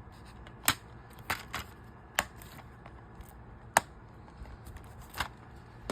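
About six sharp plastic clicks and snaps spread over a few seconds: DVD discs and keep cases being handled, discs pressed onto their hubs and cases snapped shut.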